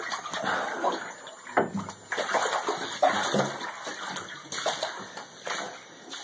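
Rubber boots wading through ankle-deep standing floodwater on a basement floor, an uneven run of splashes and sloshes.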